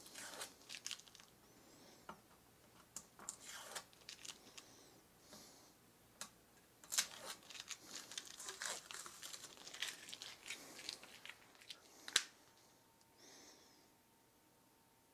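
Blue masking tape being peeled off a guitar's frets and fretboard after fret polishing: irregular rips and crinkles, with one sharp click near the end.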